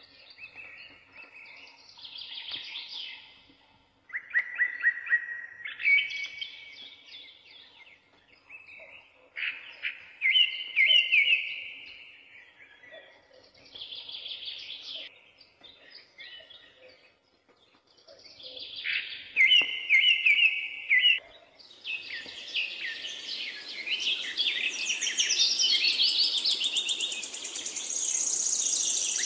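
Songbirds singing short, trilled phrases a few seconds apart. About three-quarters of the way in, more birds join in a denser, louder chorus over a steady background hiss.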